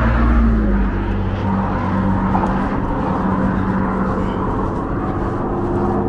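Road traffic going by on the bridge's highway lanes beside the walkway: a steady drone of engines and tyres, its hum dropping slightly in pitch about a second in.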